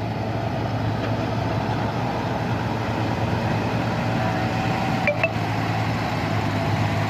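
Excavator's diesel engine running steadily, with a brief metallic clank about five seconds in.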